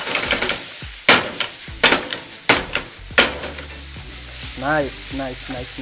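Beef and peppers sizzling in a hot non-stick pan as they are stirred and tossed with a wooden spoon, with four sharp knocks of the spoon against the pan between about one and three seconds in.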